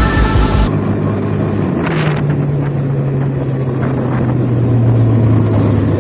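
Yamaha Fino scooter's small single-cylinder engine running on the move, its pitch sliding slowly down as the scooter slows. Background music cuts off just under a second in.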